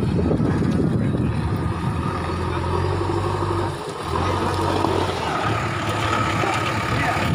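JCB 3DX backhoe loader's diesel engine running as the machine drives and turns through mud. Its note dips briefly about halfway, then picks up again.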